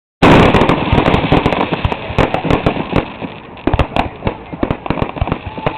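Fireworks going off in a rapid barrage of sharp cracks and pops, starting suddenly, densest in the first second, then thinning out to scattered bangs.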